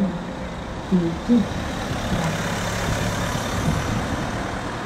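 A car driving past close by: a steady rush of engine and tyre noise on the street. There are two short voice sounds about a second in.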